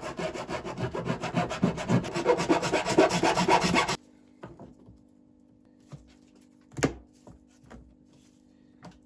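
A hand file rasping in quick back-and-forth strokes on the freshly cut plastic edge of a car's lower grille, deburring it. The filing stops abruptly about four seconds in, followed by a few light plastic clicks and taps, one louder click near seven seconds.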